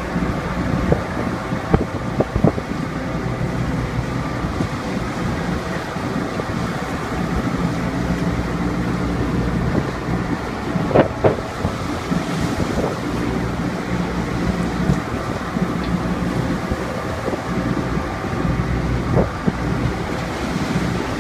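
Fishing boat's diesel engine droning steadily under gusting wind on the microphone and rough seas washing past the hull, with a few sharp knocks, a pair of them close together about eleven seconds in.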